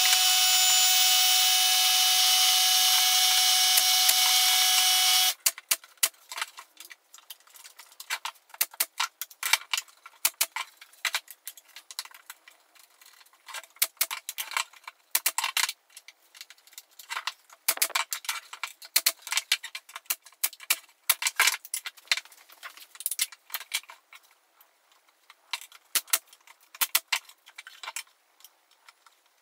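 Sped-up workshop audio: a power tool motor runs steadily for about the first five seconds and cuts off suddenly. Then come many quick, irregular sharp clicks and knocks of wooden panels being handled and a box being assembled.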